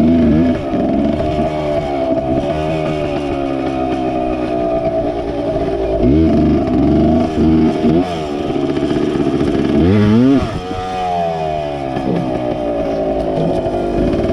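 MX 100 motorcycle's two-stroke engine ridden hard, revving up and dropping back again and again as it works through the gears, with one long high climb near the middle.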